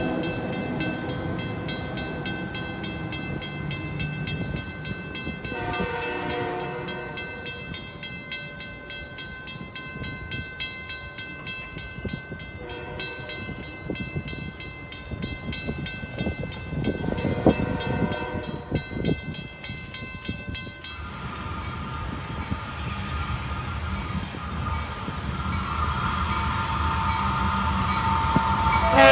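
A departing train fading away with faint, distant horn blasts three times; then, about three quarters of the way in, the sound of an approaching Providence and Worcester freight train growing louder, its locomotive horn starting just at the end.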